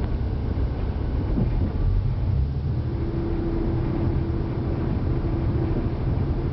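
KTR001-series Tango Explorer diesel railcar running at speed, heard from inside its driving cab: a steady low rumble of engine and wheels on the rails, with a steady hum setting in about three seconds in.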